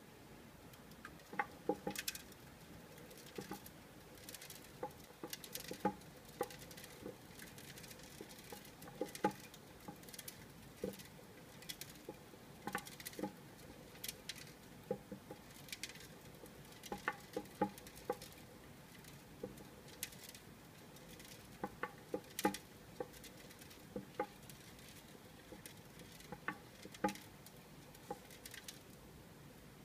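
Hedgehog walking in a plastic exercise wheel: irregular light clicks and taps of its feet on the plastic as the wheel turns, a few a second, some in quick little runs.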